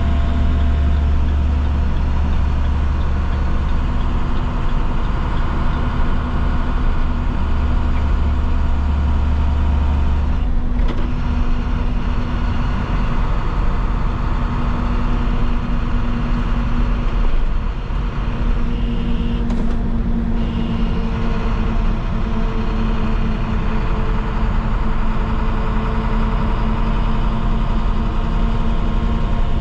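School bus's MaxxForce DT inline-six diesel engine running steadily, with a strong deep rumble that drops away about ten seconds in. A short higher-pitched sound comes in about twenty seconds in.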